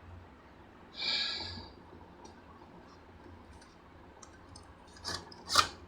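Laptop casing being handled during reassembly: a brief scraping rustle about a second in, a few faint ticks, then two sharp plastic clicks near the end, the second the loudest.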